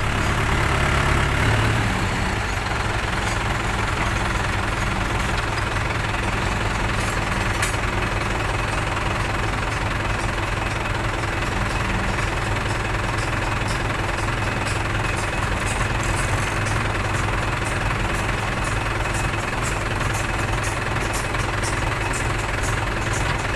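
Tractor's diesel engine running steadily with a fast ticking clatter, a little louder in the first two seconds.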